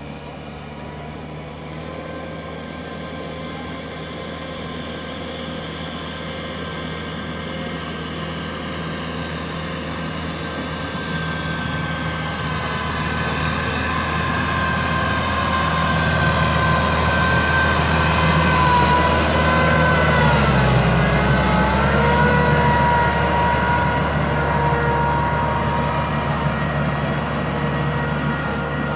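Farm tractor's engine running under load as it works a rotary tiller through paddy mud, growing louder as it draws near. About two-thirds of the way through the engine note sags for a moment under the load, then picks back up.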